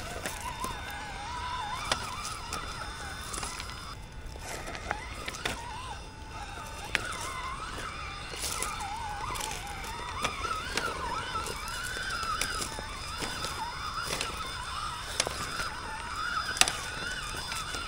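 Element RC Gatekeeper scale rock crawler's electric motor and gearbox whining, the pitch wandering up and down with the throttle as it climbs, with scattered sharp clicks and knocks.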